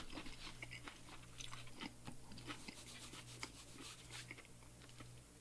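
Faint, crunchy chewing of a mouthful of salad (crisp romaine and kale leaves with a panko topping), heard as irregular short crackles over a low steady hum.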